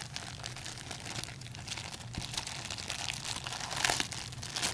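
Hockey card pack wrapper crinkling as it is torn open by hand, with a louder crackle about four seconds in.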